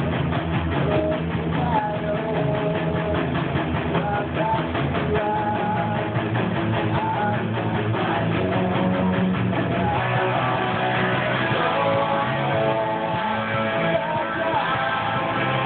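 Electric guitar playing rock riffs and chords without a break, over a full rock-band recording.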